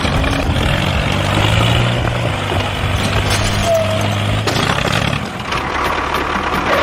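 A vehicle engine running steadily, with a low hum.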